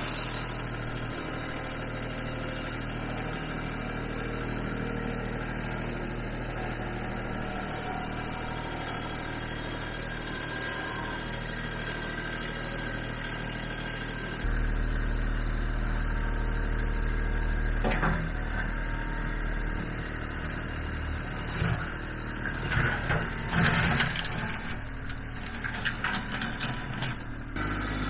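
Kubota B2650 compact tractor's three-cylinder diesel engine running steadily; about halfway through it gets louder and heavier, and in the second half come several knocks and scrapes as the front loader bucket digs out the ditch.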